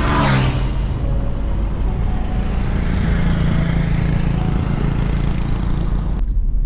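Motor vehicle running on the move: a steady low engine hum and road noise, opening with a quick falling sweep in pitch. It cuts off suddenly near the end.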